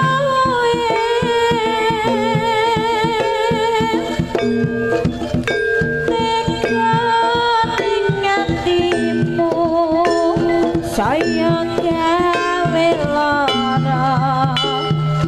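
Javanese jaranan dance music played loud through a loudspeaker system: a rapid drum pattern under stepped, ringing melodic notes, with a long wavering held tone in the first few seconds.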